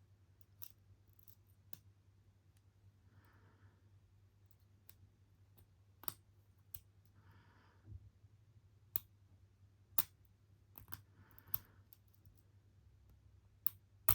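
Lock picks working the pins of a 58 mm brass padlock: irregular, sharp metallic clicks, about a dozen, as the pick is shoved up and round a tight, bent keyway.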